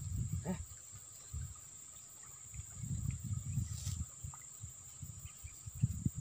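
Insects shrilling steadily at a high pitch, with a low rumbling noise that comes and goes. Just before four seconds in there is a short splash as a small snakehead strikes the lure.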